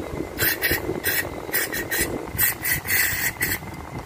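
Aerosol cleaner sprayed through a straw nozzle into an idle air control valve: a quick series of short hissing squirts, the longest about half a second near three seconds in, stopping shortly before the end.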